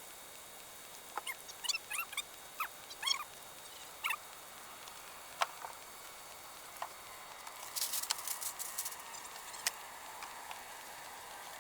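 A few short, high chirps in the first few seconds, then scattered clicks and a brief flurry of rapid clicks and rustling about two-thirds of the way through, over a faint steady hiss.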